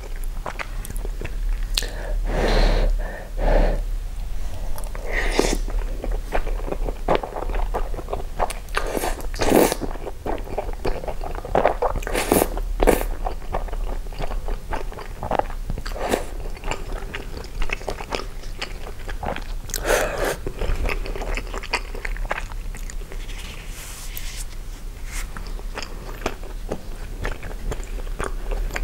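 Close-miked eating of spaghetti with meat sauce, sausage slices and melted cheese: irregular wet chewing and biting sounds as forkfuls of noodles are taken into the mouth.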